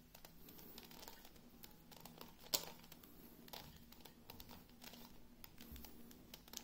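Faint clicking and rattling of a plastic 2x2 Megaminx (Kilominx) puzzle as its faces are turned by hand, with one sharper click about two and a half seconds in.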